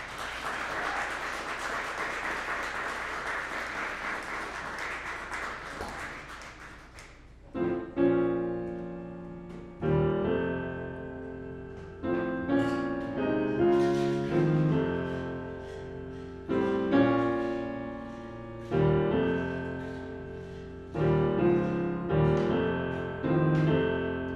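Audience applause fading out over the first several seconds. Then a solo piano plays slow, sustained chords, a new chord struck about every two seconds, as the opening of a jazz tune.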